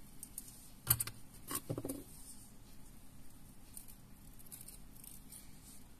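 Hands handling thin thread and a small pair of scissors: a few sharp clicks about a second in, then faint scattered ticks.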